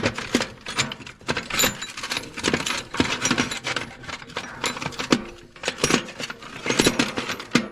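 Steel wrenches and sockets clinking and clattering against one another as they are handled and sorted. Quick clusters of metallic knocks, some leaving a short ring.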